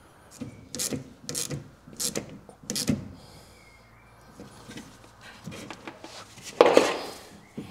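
Rubbing and clicking of gloved hands working a rubber hose onto the return-line fitting on top of a fuel tank: a run of short clicks and scrapes, then one louder scrape near the end.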